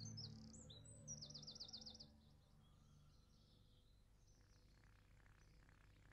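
Birds chirping, with a quick trill of about eight rapid notes in the first two seconds, then near silence.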